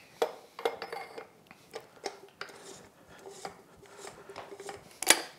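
Small metal clinks and light scraping as a lock washer and threaded retainer are fitted by hand over the propeller shaft of an outboard's lower unit, with a sharper click near the end.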